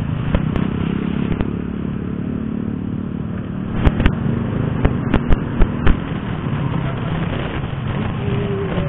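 Honda RS125fi's 125 cc single-cylinder engine running steadily under way, with road and wind noise. A quick run of sharp knocks or rattles comes about four to six seconds in.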